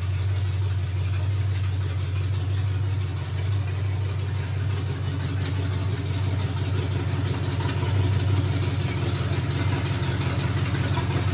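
1975 Ford F100's V8 idling steadily, its exhaust running through freshly fitted long-tube headers.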